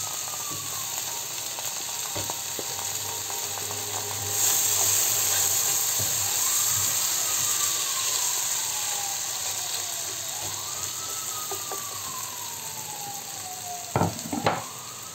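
Chopped onion, green and red peppers and garlic sizzling in hot oil in a frying pan as they are stirred with a silicone spatula; the sizzle grows louder about four seconds in. A siren wails faintly, rising and then slowly falling, over and over, and the spatula knocks against the pan twice near the end.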